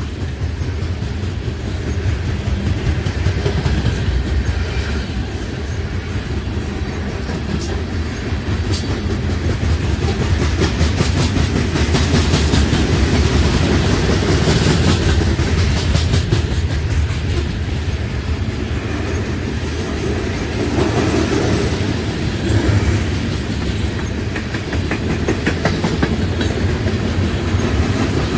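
Loaded freight cars of a long train rolling past, a steady low rumble with dense clicking and clattering of wheels over rail joints.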